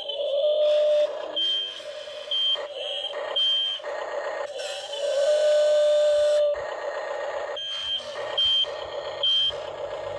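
Toy radio-controlled Volvo excavator working its arm and bucket: a whine from its small electric motors that starts and stops with each movement, with two sets of three short, high electronic beeps, one early and one near the end.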